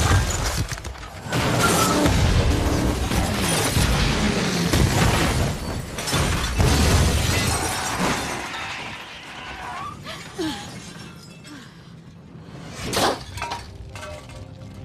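Film action-scene sound effects: an ambulance crashing through a concrete barrier with loud shattering debris and impacts over dramatic music. The din dies down after about eight seconds, and a single sharp bang comes near the end.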